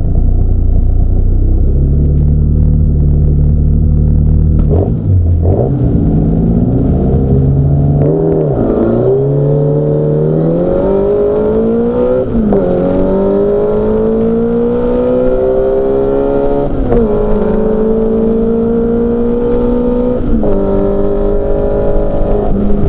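Mini Cooper S race car's four-cylinder engine running at a steady low note, then accelerating hard from about five seconds in, its pitch climbing and dropping back at each of four upshifts.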